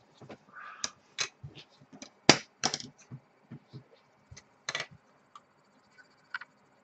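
Scattered small clicks and taps of plastic model-kit parts and hobby tools being picked up and set down on a cutting mat, the loudest about two seconds in.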